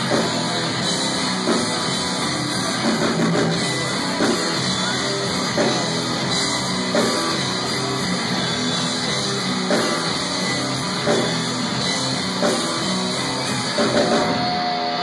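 Hardcore punk band playing live and loud: distorted electric guitar over a drum kit, with a heavy accent about every second and a half.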